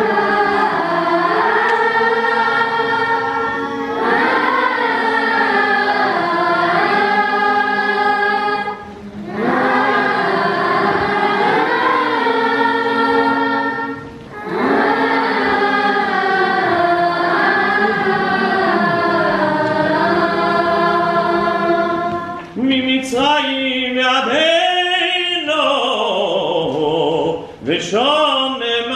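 Boys' choir singing the Selichos penitential liturgy in many voices, breaking off briefly twice. Near the end a single voice carries on alone in a wavering, ornamented line.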